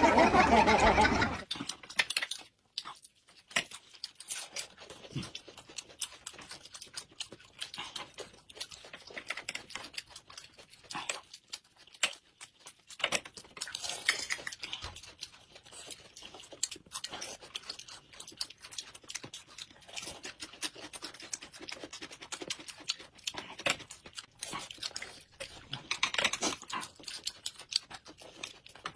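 Close-miked eating sounds: two people chewing steamed buns and biting crisp raw cucumber, a continual string of small mouth clicks and crunches that gets louder for a moment around the middle and near the end. A voice trails off in the first second or so.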